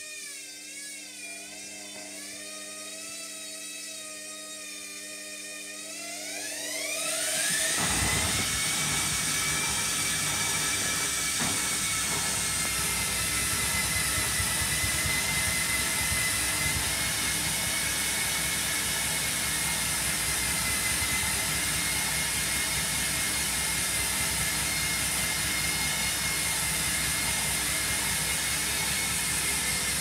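Hotpoint Smart Tech washing machine ramping up into its final spin on Eco Cottons: a wavering motor whine that rises steeply about seven seconds in and settles into a loud, steady high-speed spin.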